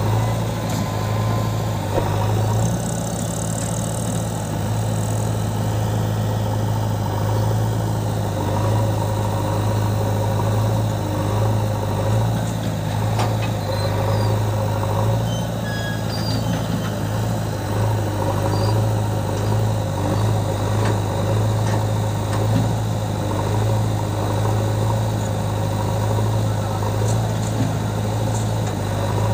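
Diesel engine of a JCB 3DX backhoe loader running steadily while its backhoe digs and loads sand, with a few faint knocks.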